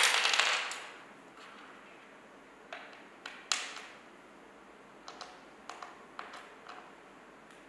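Small metal screws clinking and tapping against a steel bracket as they are handled and set in place by hand: a louder metallic clatter at the start, then scattered light clicks.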